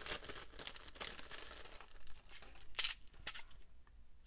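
Clear cellophane treat bag crinkling and rustling as paper tags are handled in it, with a sharp crackle about three seconds in.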